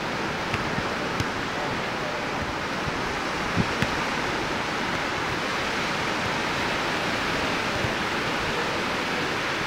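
Steady wash of ocean surf breaking on a sandy beach, with a couple of faint brief knocks about halfway through.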